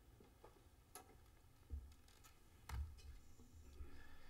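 Near silence with faint room tone, broken by a few soft knocks and low thumps about two and three seconds in.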